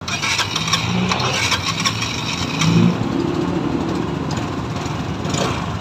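Motorstar Easyride 150P scooter's 150 cc single-cylinder engine running steadily at idle.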